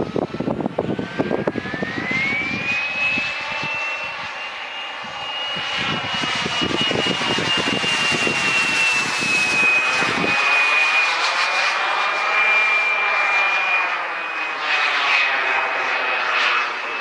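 High-pitched whine of a small model jet turbine on an RC jet flying overhead. The whine rises in pitch about two seconds in and then holds steady, with a swirling, phasing sound as the jet passes. Wind rumbles on the microphone for the first ten seconds or so.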